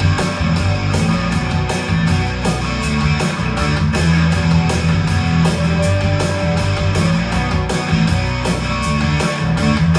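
Heavy rock music with electric guitar, strong bass notes and a steady drum beat, played back through a Bose speaker.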